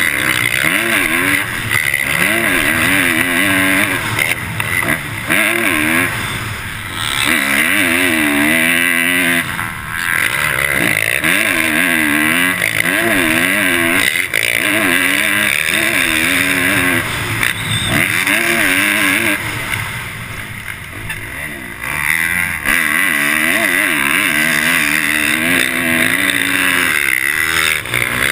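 Motocross bike engine heard from the rider's helmet camera, revving up and dropping back again and again as it is ridden hard around the track. It goes briefly quieter about two-thirds of the way through, then pulls hard again.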